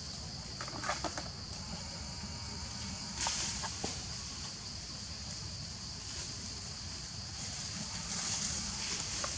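Outdoor ambience: a steady high-pitched hiss with a low background rumble, broken by a few brief faint clicks or squeaks about a second in and again between three and four seconds.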